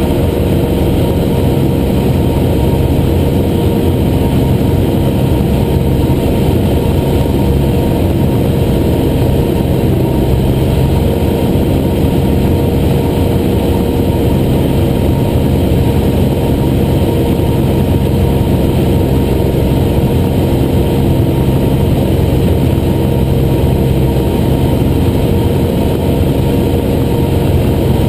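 Cessna 175's piston engine and propeller running steadily in flight, heard from inside the cockpit.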